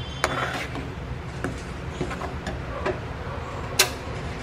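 Metal spoon stirring a creamy sauce in a frying pan on the stove: scattered light clicks and scrapes, with one sharper clink near the end, over a steady low hum.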